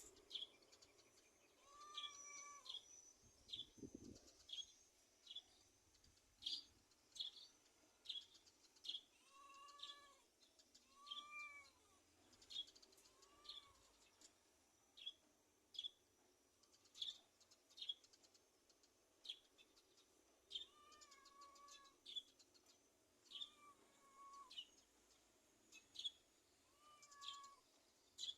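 A cat gives short meows every few seconds, often in pairs, while a small bird chirps steadily with sharp, high notes about once a second.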